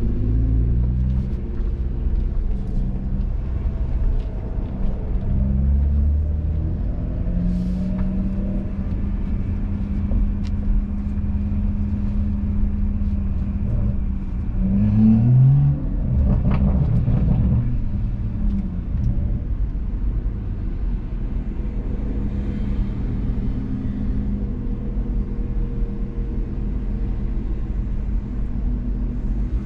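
A 2017 BMW M240i's 3.0-litre turbocharged straight-six running under load on track, its pitch shifting up and down. About fifteen seconds in the pitch rises sharply and the engine is loudest. A heavy low rumble runs underneath.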